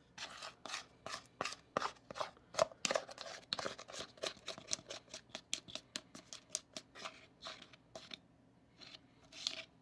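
Small plastic spatula scraping wet cake batter out of a plastic mixing bowl: a quick run of short scrapes, several a second, that thins out about eight seconds in, with one more scrape near the end.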